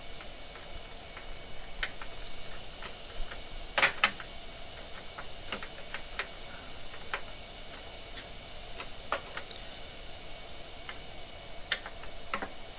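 Irregular clicks and ticks of hand work on a metal computer case, as a screwdriver drives self-tapping screws to mount a 60 mm fan. The loudest is a sharp double click about four seconds in.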